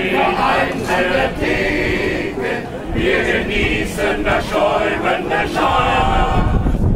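Men's choir singing unaccompanied, many male voices in harmony.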